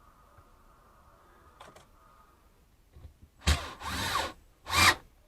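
Power drill driving a screw in two short bursts, starting about three and a half seconds in.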